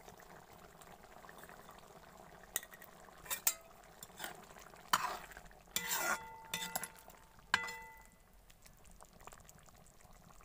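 A metal spoon stirring curry in a metal karahi, knocking and scraping against the pan several times through the middle of the stretch, a few strokes leaving a short metallic ring. A faint steady simmer runs underneath.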